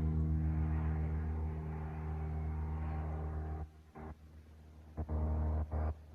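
A low, steady motor hum that cuts off suddenly about three and a half seconds in, then switches back on twice in short bursts near the end.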